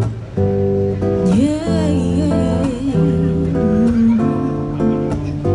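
Live band playing a slow pop ballad intro: strummed guitar and held chords changing every half second or so, with a wavering lead melody with vibrato coming in about a second in and dropping out around four seconds.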